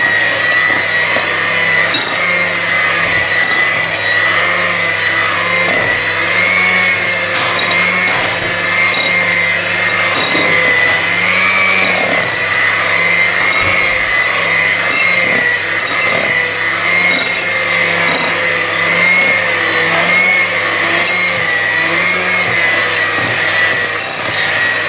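Kenwood electric hand mixer running steadily, its twin beaters whisking thick brownie batter in a glass bowl. The motor gives a steady high whine that wavers slightly in pitch.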